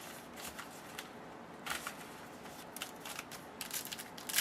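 Hockey trading cards being handled and slid over one another: soft papery swishes and scrapes, more frequent near the end.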